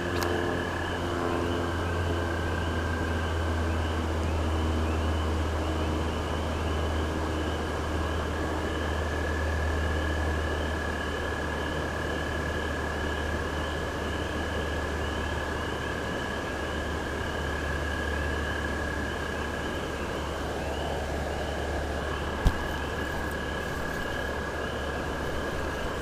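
A chorus of frogs calling, short high peeps repeated many times a second, over a steady low rumble. One sharp tap sounds near the end.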